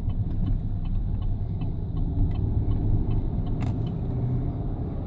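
Vehicle being driven: a steady low engine and road rumble, with faint light ticks scattered through it.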